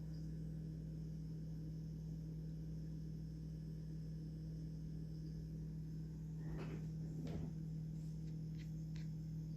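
Steady low electrical hum, with a few faint clicks and rustles about six and a half to nine seconds in; no high test tone stands out.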